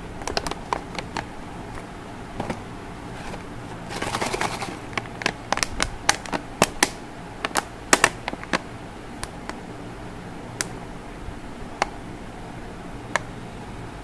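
A cardboard chocolate gift box with a clear plastic window being handled: sharp clicks and crackles of the packaging, with a short rustle about four seconds in. The clicks come thickest in the middle and grow sparse toward the end, over a steady low hum.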